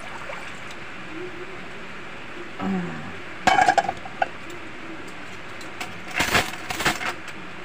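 Metal spoons clinking against each other in a plastic washbasin: a sharp ringing clink about three and a half seconds in, then a longer clatter about two seconds later.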